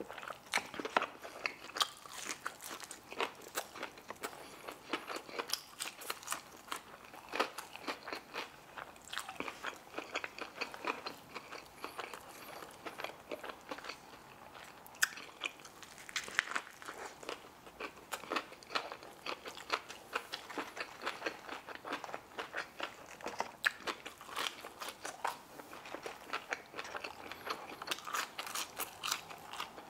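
Close-miked crunching, biting and chewing of crispy fried hot chicken tenders and a fried chicken sandwich: a steady stream of irregular sharp crunches and wet mouth sounds.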